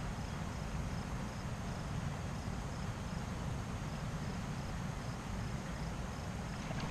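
A cricket chirping steadily, a thin high note repeating about twice a second, over a low steady rumble.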